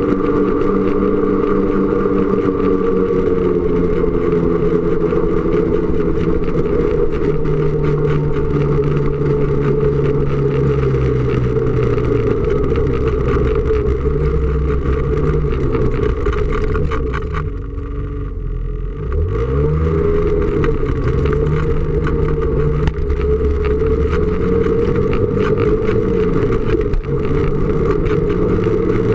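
Snowmobile engine running on the move, its pitch drifting up and down with the throttle. A little past halfway it eases off for about two seconds, then revs back up.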